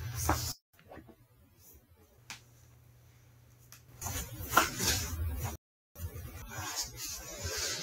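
Ghost-hunting app audio: hissy static over a low hum, breaking about four seconds in into garbled, voice-like fragments. After a brief dropout the fragments return. The uploader takes them for a spirit voice saying 'come f*** him woman'.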